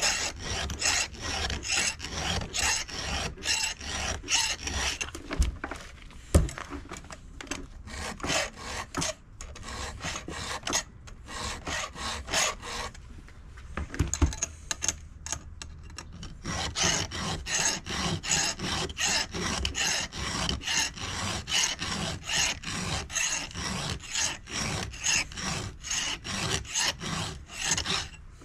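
Round hand file rasping across a chainsaw chain's cutters in quick, even strokes, about two or three a second, with a couple of short pauses as the chain is moved on to the next tooth.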